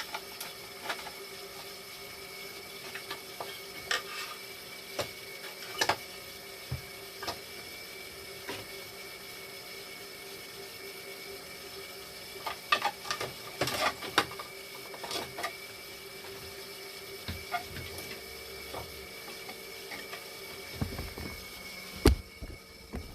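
Scattered clicks and knocks of hand tools and small plastic parts as a valve is removed and replaced inside a dialysis machine, over a steady hum. There is a busy run of clicks about halfway through and one loud knock near the end.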